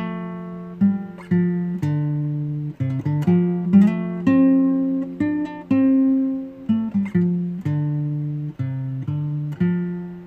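Acoustic guitar playing a slow instrumental passage: plucked notes and chords, each ringing out and fading before the next.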